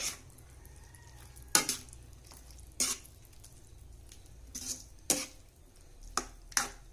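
A white spoon stirring saucy pork and vegetables in a wok. It scrapes and knocks against the pan about seven times at uneven intervals, over a faint sizzle and a steady low hum.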